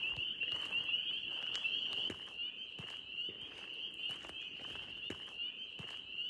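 Chorus of spring peepers: a steady, high, shrill peeping that never lets up, with scattered irregular clicks and crackles over it.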